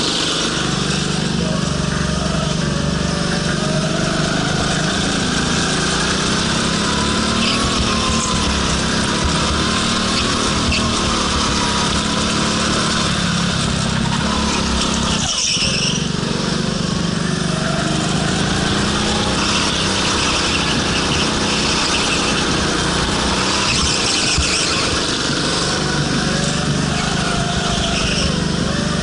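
Go-kart engine running hard, heard from on board, its pitch rising and falling again and again as the kart accelerates out of corners and backs off into them. There is a brief dip in the sound about halfway through.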